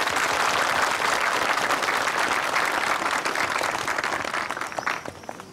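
A large crowd applauding: dense, steady clapping that dies away about five seconds in.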